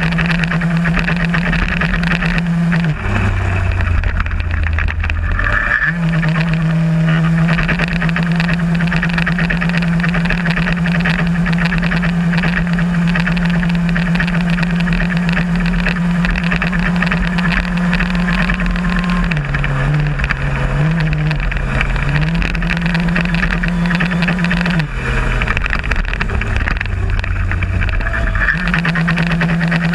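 VéloSoleX moped's small two-stroke engine running flat out, heard on board. Its note drops for a few seconds three times, about three seconds in, around twenty seconds and near the end, as the revs fall, then climbs back each time.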